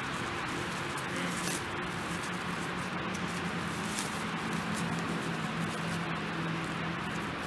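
Grass and clay soil rustling and crackling as sod is laid back over a trench and pressed down by hand, over a steady background hiss with a faint low hum.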